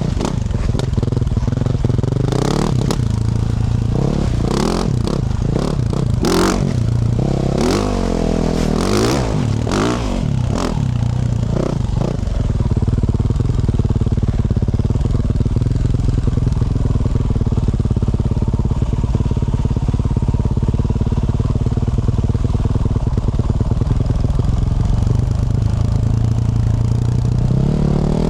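2024 Yamaha YZ450F's single-cylinder four-stroke engine through a Yoshimura RS-12 exhaust, revving up and down under the throttle with sharp knocks and clatter through the first dozen seconds. It then holds a steady engine speed, and the revs rise again near the end.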